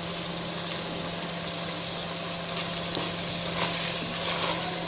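Chicken small intestine and mushrooms sizzling in a stainless steel pot on the stove, a steady hiss over a low steady hum. In the last second or two a spatula knocks and scrapes against the pot a few times as stirring begins.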